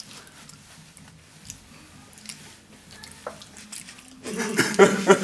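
Faint chewing of jelly beans in the mouth with small wet clicks, then loud laughter breaking out about four seconds in.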